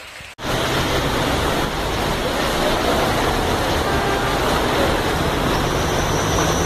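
Cars driving through deep floodwater on a road, the water splashing and rushing loudly over the sound of their engines. It starts abruptly about half a second in.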